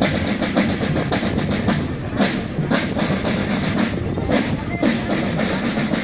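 A parade band's drums playing a marching beat, with music.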